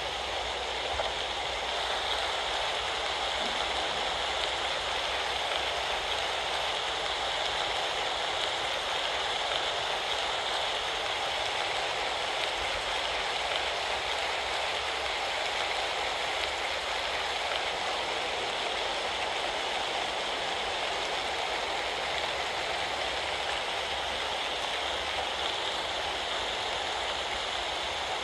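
Steady rain falling in a rainstorm, an even hiss that holds the same level throughout.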